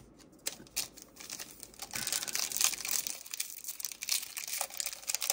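Foil wrapper of a Bowman Chrome University trading-card pack being torn open and crinkled: a dense run of crackles and rustles that starts about half a second in and gets busier about two seconds in.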